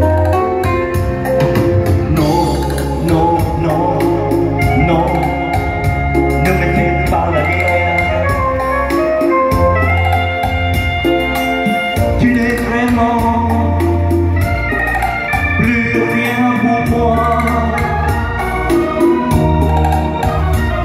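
Instrumental break played live on a Korg electronic keyboard: an organ-like melody over held bass notes and a steady programmed drum beat.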